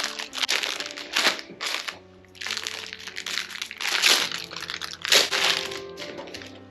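Plastic packaging crinkling and rustling in a string of bursts as a small package is handled and torn open.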